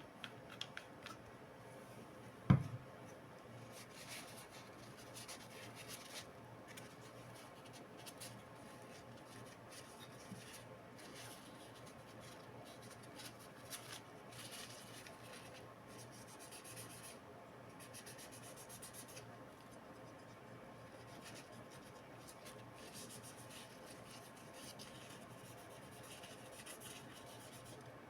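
Faint rubbing and scratching of hands working on laptop parts, with one sharp knock about two and a half seconds in.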